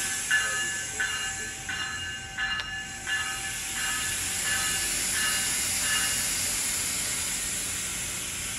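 GO Transit bilevel coach door warning tone beeping over and over, about every 0.7 seconds, fading away after about six seconds, over a steady hiss of air from the train.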